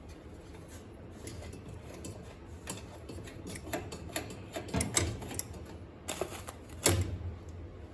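Irregular metallic clicks and taps of gas range parts and tools being handled during a repair, with a few sharper knocks a little before five seconds in and near seven seconds in.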